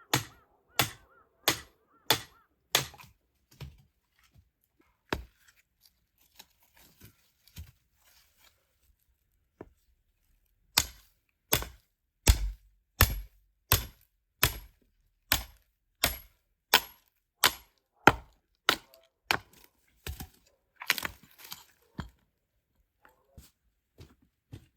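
Firewood being chopped: a steady run of sharp wooden strikes about two-thirds of a second apart. A short run comes first, then a pause, then a longer run of a dozen or more blows.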